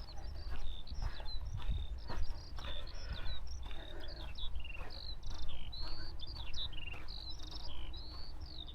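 Skylark song: a long, unbroken stream of rapid, varied high chirps and trills. Dull footstep thuds about once a second sit underneath and are the loudest sounds.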